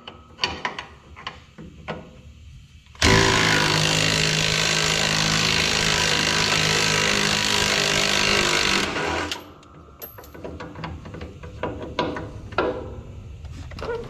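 Impact wrench with a 3/4 inch socket hammering steadily for about six seconds, starting about three seconds in and stopping abruptly, as it breaks loose a carrier bearing bolt on a semi truck's driveshaft. Light clicks of tools and hardware come before and after it.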